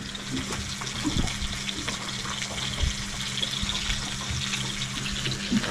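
Crumbed barramundi fillets deep-frying in very hot oil: a steady crackling sizzle over a low steady hum.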